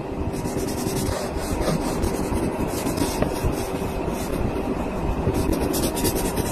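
Oil pastel stick rubbing and scraping across drawing paper in continuous strokes, quickening into rapid back-and-forth scribbling near the end as an area is shaded in.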